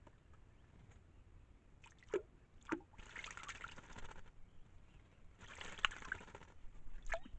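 White-naped jay bathing in a shallow rock pool: two bouts of wing-flicking splashes, each about a second long, the first about three seconds in. A few short sounds falling in pitch come before and after the splashing.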